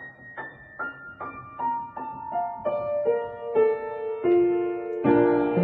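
Background music: a piano playing a falling run of single notes, a new note about every half second, ending on a fuller chord near the end.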